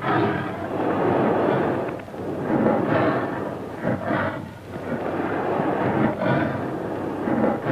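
Rumbling, roaring sound effects on an old film soundtrack, a dense rough noise that swells and fades several times.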